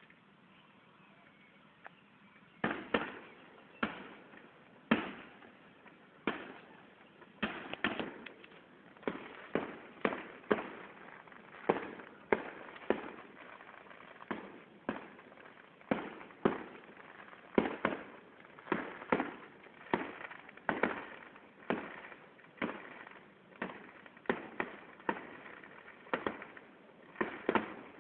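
Distant fireworks display: aerial shells bursting with sharp bangs, each echoing away, roughly one a second with some in quick pairs. The bangs begin about two and a half seconds in.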